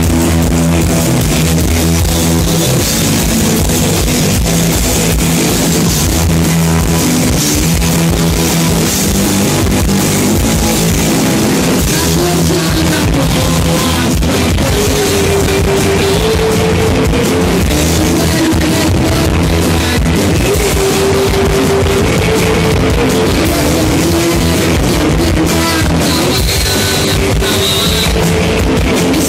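Live rock band playing loudly: electric guitars and a drum kit, with a singer's voice over the band.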